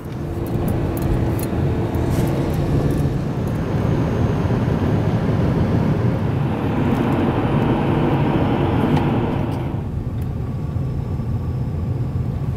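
A car driving, its engine and tyre noise heard from inside the cabin as a steady rumble; the sound eases a little about ten seconds in.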